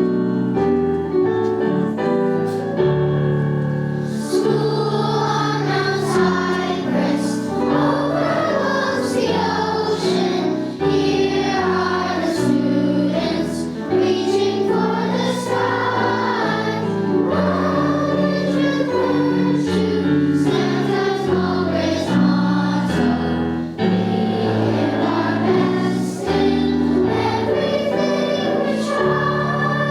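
Children singing a song in English with piano accompaniment. The piano plays alone at first, and the voices come in a few seconds in.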